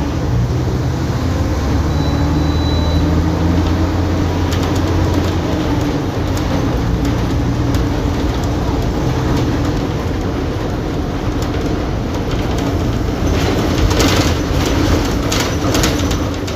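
Mercedes-Benz OF-1722M bus's diesel engine running under way, a steady low drone whose pitch shifts about six seconds in. Clicks and rattles near the end.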